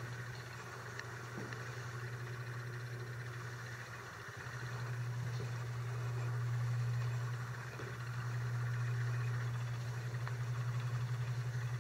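A steady low hum, getting louder about four seconds in and then swelling and easing slightly.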